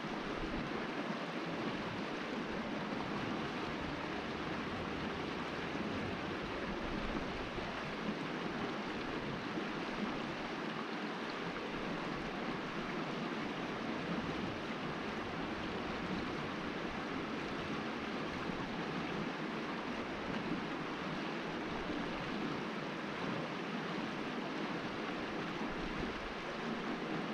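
Creek water flowing over rocks: a steady, even rushing.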